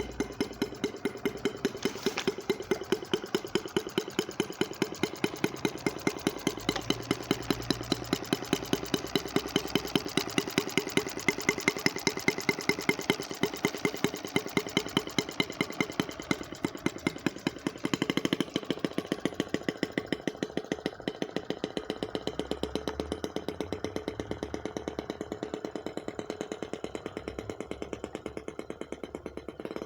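Gas engine of a radio-controlled model boat running steadily with an even pulsing beat. It grows gradually fainter over the last ten seconds.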